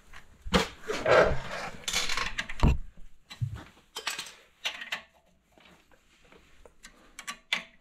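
Hand tools knocking and scraping on the steering linkage: a string of metal clanks and scrapes, then quieter, with a few sharp clicks near the end as locking pliers on the back nut are handled. The impact wrench is not running.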